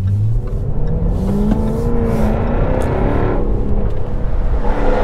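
Jaguar F-Type R's 5.0-litre supercharged V8 accelerating hard from near standstill, its note rising through a gear. An upshift drops the revs about three seconds in, and the engine climbs again and grows louder near the end.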